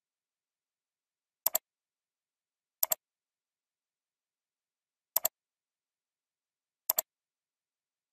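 Computer mouse clicking: four quick paired clicks, each a button press and release, with silence between.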